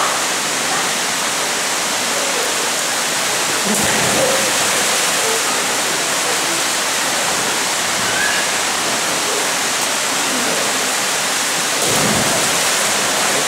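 Mountain stream rushing through a narrow rock gorge, a steady loud rush, with two splashes of people jumping into the pool: one about four seconds in and another near the end.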